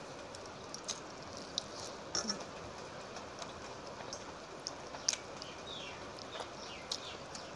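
Fingers squishing and mixing water-soaked rice (panta bhat), with scattered wet clicks and smacks over a steady hiss.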